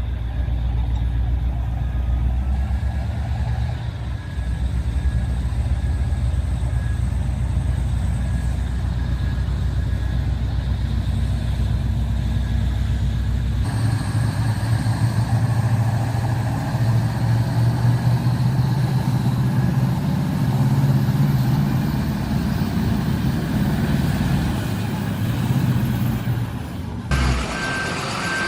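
Heavy vehicle engines running steadily with a deep rumble. The sound changes abruptly about halfway through to a different engine with a stronger hum.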